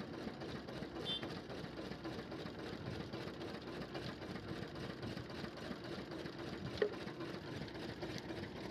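Sugarcane crusher running steadily, its small engine driving the belt and geared rollers with a constant mechanical drone. One sharp clink comes about two-thirds of the way through.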